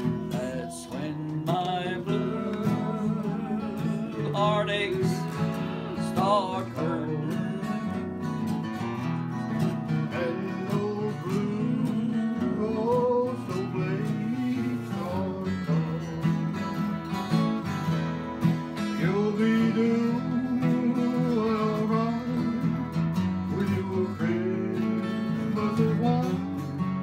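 A man singing, his held notes wavering, while strumming an acoustic guitar.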